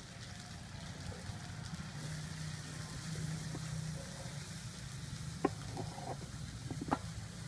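A lemongrass mixture frying in a metal wok while a metal ladle stirs it, over a steady low hum. The ladle clinks against the wok twice in the second half.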